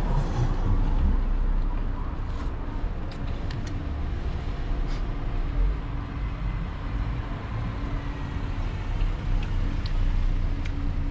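Steady low rumble and hiss of background noise, with a few faint clicks scattered through it.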